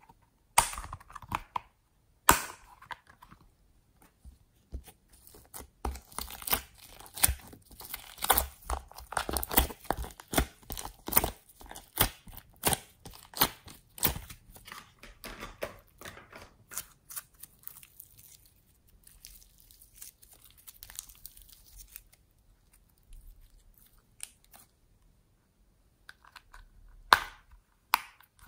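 Homemade slime being peeled out of plastic trays and squeezed by hand: a dense run of sticky crackles and pops that eases off about three quarters of the way through, with one sharp click near the end.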